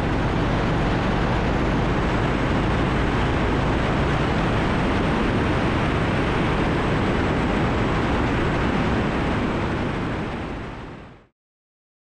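Motorcycle riding at road speed: steady wind noise rushing over the microphone, with the low running of the Indian Roadmaster's Thunderstroke 116 V-twin underneath. It fades out near the end.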